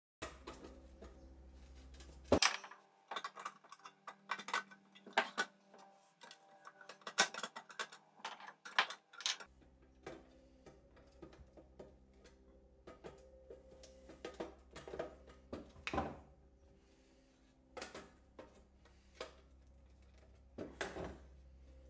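Pliers working on the pressed sheet-metal housing of an antique kitchen scale during disassembly: irregular metallic clicks, taps and clanks, busiest in the first half, over a faint steady hum.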